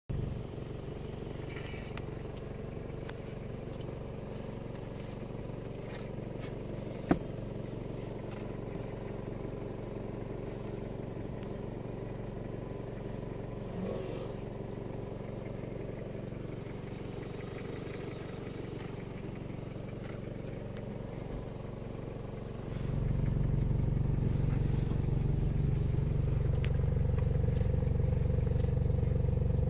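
Vehicle engine running steadily at a low hum, then noticeably louder from about three quarters of the way through. There is a single sharp click about seven seconds in.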